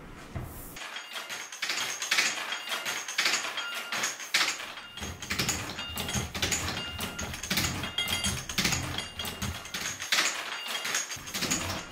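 Hand-operated platen letterpress being worked: a steady run of mechanical clacks, several a second, with short metallic ringing clinks from its moving parts.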